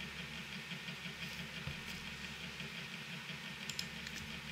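A steady low hum of room tone, with a few faint clicks.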